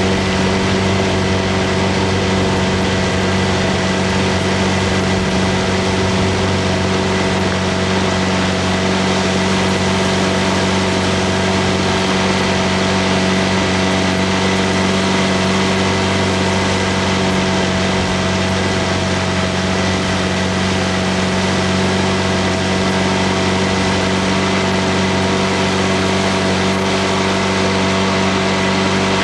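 Motorboat engine running steadily at a constant pitch, with no change in speed.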